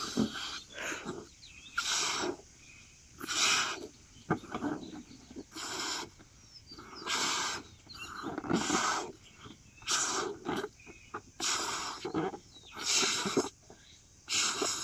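Balloons being blown up by mouth: a run of forceful breaths into the balloons, each about half a second to a second long, roughly one every second and a half.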